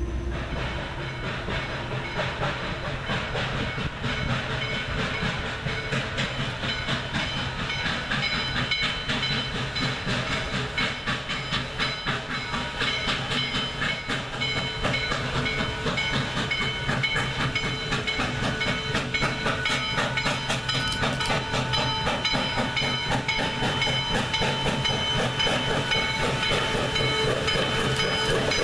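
Western Maryland Scenic Railroad No. 1309, a Baldwin 2-6-6-2 articulated steam locomotive, approaching under power: rapid, steady exhaust chuffs over hissing steam, growing louder as it draws near.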